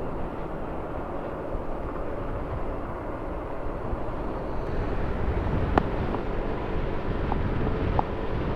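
Wind rushing over a DX-7 Evo dual-sport helmet, heard from a microphone by the rider's ear while riding, with the ride's low rumble underneath; it grows a little louder about halfway through, with a single sharp click a little past the middle.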